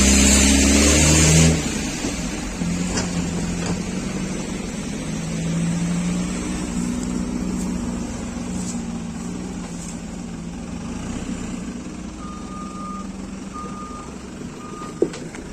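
Heavy machinery engine running, loud at first and then dropping abruptly about a second and a half in, continuing as a steady hum. Near the end a vehicle's reversing alarm starts beeping, about once a second.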